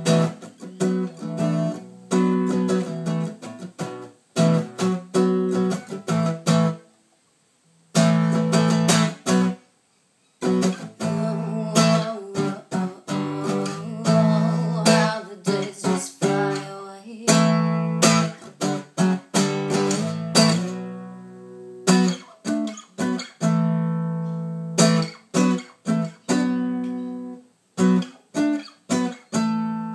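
Acoustic guitar strummed in a rhythmic chord pattern, with two brief stops about seven and ten seconds in and one chord left to ring out for a few seconds past the twenty-second mark.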